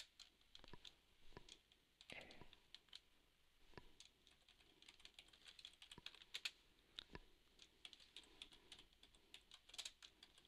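Faint computer keyboard typing: irregular runs of key clicks as a command is typed.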